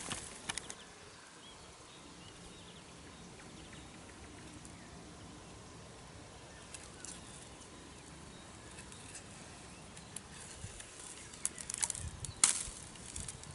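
Quiet outdoor background with scattered rustles and short clicks, busier near the end with one sharp click about a second before it ends.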